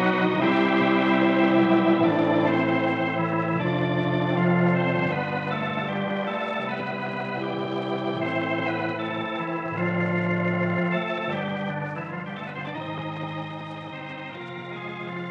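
Organ music playing held chords that change every second or so, with a rising run of notes about twelve seconds in, gradually fading down: the radio program's opening theme.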